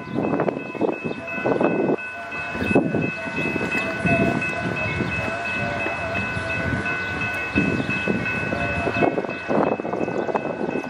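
Railroad crossing warning bells ringing steadily as a train comes up to the crossing, over the low, uneven rumble and clatter of the train.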